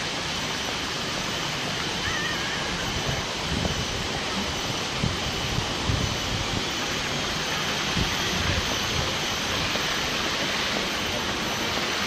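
Steady rushing outdoor noise, even and unbroken, with a few soft low thumps.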